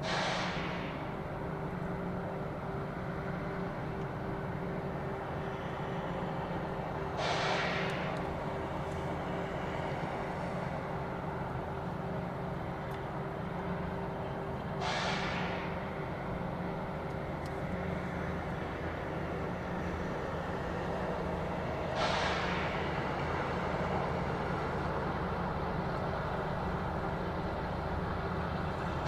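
A diesel locomotive running with a steady low drone, and a short burst of air hissing about every seven seconds.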